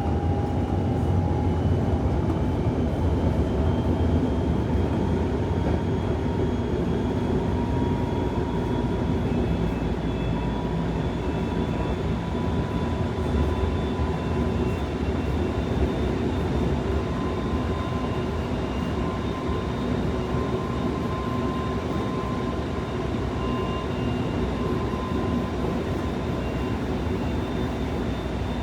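Senboku Rapid Railway 7000 series electric train running at speed, heard from inside the passenger car: a steady rumble of the car on the track with a thin whine that slowly rises in pitch over the first half, then holds steady.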